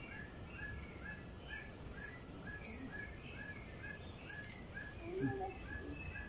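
Birds calling in the open air: a short chirp repeats evenly about twice a second, with scattered higher calls over it and a brief lower call about five seconds in.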